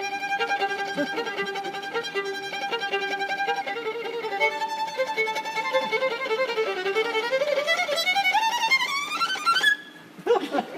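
Solo violin improvising a short 'storm' on request: a held high note, quick wavering notes working downward, then a fast run climbing steeply to a high note that breaks off near the end.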